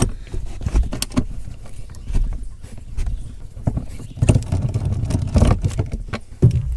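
Socket wrench on a long extension with a T55 Torx socket unscrewing a seat-mounting bolt from a truck's floor pan, the unrusted bolt turning out freely: irregular metallic clicks and rattles over a low rumble.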